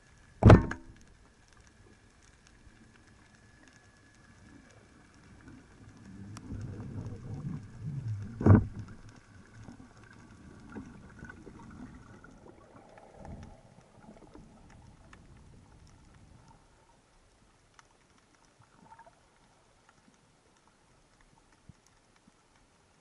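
Underwater, two sharp clacks about eight seconds apart, one of them a Salvimar Predathor 85 band speargun firing its shaft. The first clack is the louder. A low scuffling rumble of movement in the water builds around the second.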